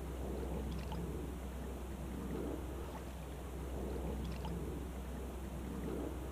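Small waves lapping and sloshing against a Hobie sea kayak's hull, swelling and easing about every two seconds, over a steady low rumble of wind on the microphone.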